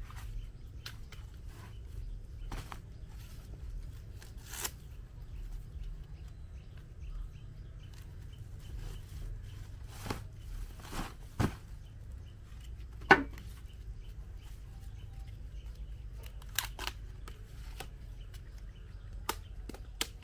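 Scattered sharp clicks and knocks over a low steady hum, the loudest knock about thirteen seconds in.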